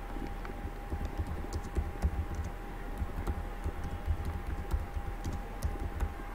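Typing on a computer keyboard: an irregular run of keystrokes starting about a second in, over a faint steady hum.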